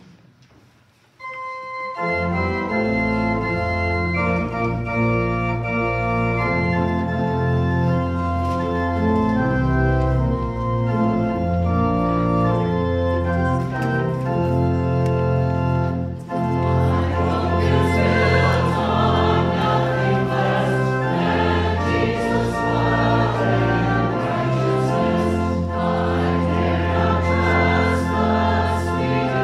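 Church organ playing sustained chords, entering about a second in. About halfway through, a choir joins in singing with the organ.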